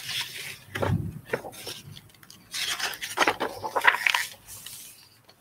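Paper pages of a picture book being turned and leafed through by hand, rustling in two spells.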